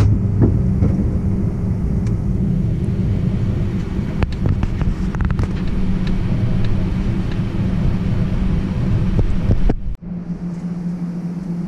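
Steady low hum and rumble inside the cabin of a parked Airbus A320, with a few scattered clicks. About ten seconds in, it cuts to a quieter, steadier hum.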